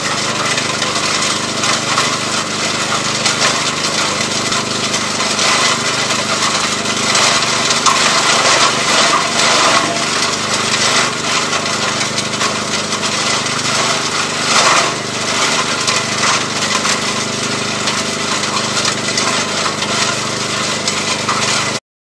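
ELIET Minor garden chipper running at full speed and chipping wood: a steady engine hum under a loud, rough rush of shredding. It grows louder for a few seconds about seven seconds in, and briefly again near fifteen seconds.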